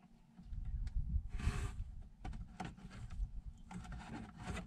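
Small clicks and a brief rustle as hands work plastic wire connectors and leads on an RV water pump, over a steady low rumble.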